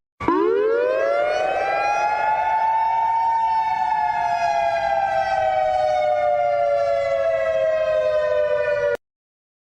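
Civil defense warning siren winding up fast to a wail, then slowly winding down in pitch. It cuts off abruptly about nine seconds in.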